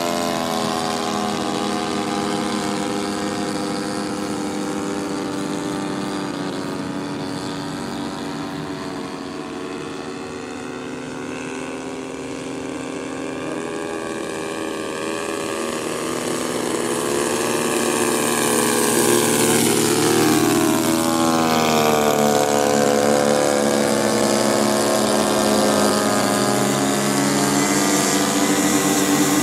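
Radio-controlled model airplanes droning overhead with a steady propeller buzz. About eighteen seconds in one passes close and grows louder, its pitch falling as it goes by and then rising again as it turns.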